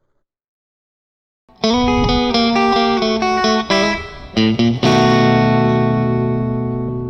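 Silence for about a second and a half, then an electric guitar riff with some distortion that ends on a held chord ringing out and slowly fading.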